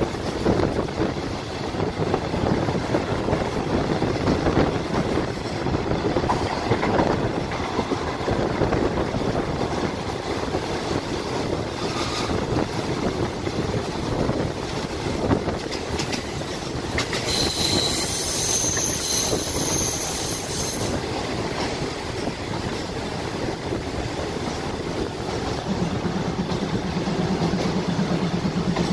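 Passenger train running on the rails, heard from aboard, with a steady rumble and clatter of the wheels. About seventeen seconds in, a high-pitched metal squeal rings for a few seconds, and near the end a steady low hum joins in.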